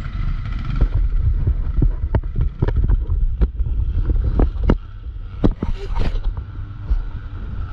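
CFMOTO CForce 625 ATV running at low throttle on a rough trail, its engine a low steady rumble under a quick run of sharp knocks and rattles as the machine jolts over the ground.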